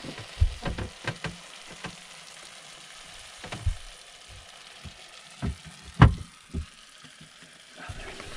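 Irregular knocks and clatters of cooking utensils and pans being handled over a faint steady hiss, with the loudest knock about six seconds in.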